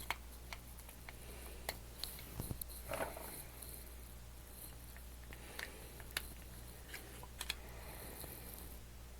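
Scattered small clicks and taps of hands handling the opened plastic remote control and fitting its batteries, with a soft rustle about three seconds in. A steady low hum runs underneath.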